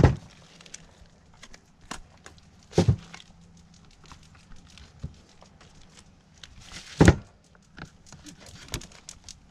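Knife and deer leg bone knocking and tapping against a plastic cutting board as the last scraps of meat are cut off the bone. Three louder knocks, one at the start, one about three seconds in and one about seven seconds in, with lighter ticks and scrapes between.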